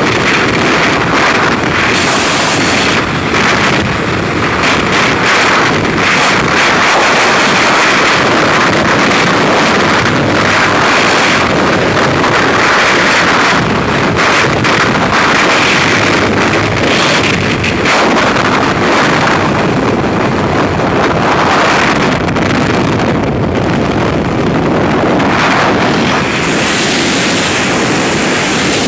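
Freefall wind rushing and buffeting over a skydiving camera's microphone, loud and steady. It thins to a higher hiss about two seconds before the end.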